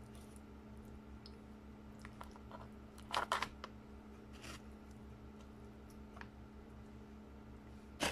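Metal spoon scooping baked sushi onto a sheet of roasted seaweed: short handling noises, loudest about three seconds in and again at the very end, over a steady low hum.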